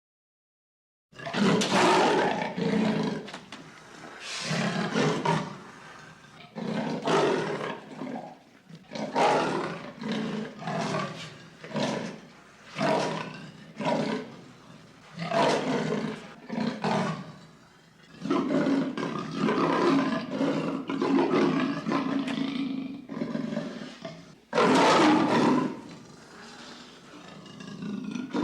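Lion roaring: after about a second of silence, a long series of loud, rough roars, each roughly a second long, with short pauses between them.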